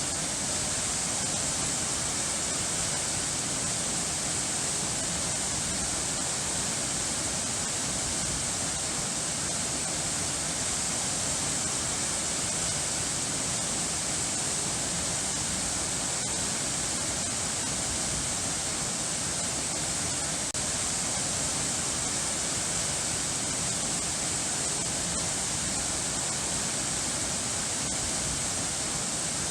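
Running water rushing steadily: an even, unbroken hiss with no changes and no music.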